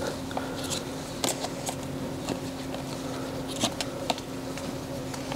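Trading cards being drawn from decks and handled on a playmat: scattered faint clicks and snaps at irregular moments, over a steady low hum.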